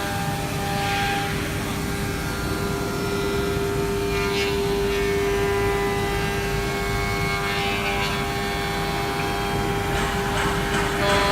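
CNC router spindle running with a steady whine while its cutter mills aluminium alloy, with noisier cutting passes about four, seven and a half, and ten seconds in.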